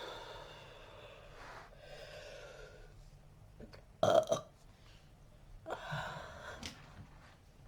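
A person burping several times, the loudest a short burp about four seconds in.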